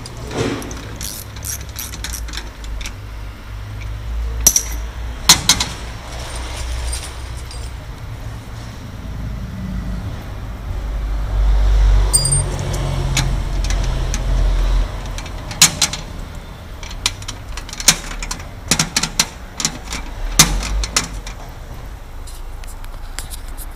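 Sharp metallic clicks and clinks of keys and a mailbox cam lock being handled and fitted into a steel letterbox door, scattered through the stretch and bunched near the end, over a steady low rumble.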